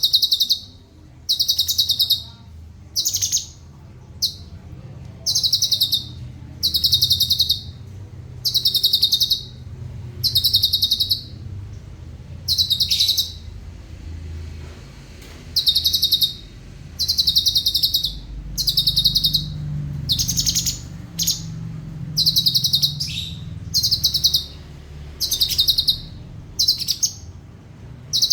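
Cucak cungkok songbird singing repeated rapid, high-pitched trills, each about a second long and coming every second or two, with a longer pause about halfway through. A faint low hum runs underneath.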